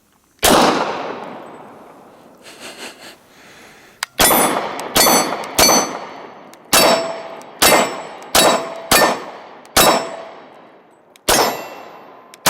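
Ten pistol shots fired at steel plates. There is one shot about half a second in, then a steady string of nine from about four seconds in. Many are followed by the ringing clang of a hit steel plate.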